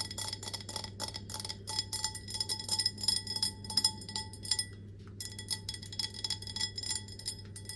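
Rapid, irregular clinking against glass tableware, which rings at a few steady pitches under the clicks. The clinking breaks off briefly about two-thirds of the way through.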